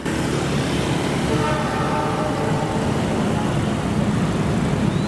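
A train passing at speed through a curve, a steady rushing of wheels on rails and moving air.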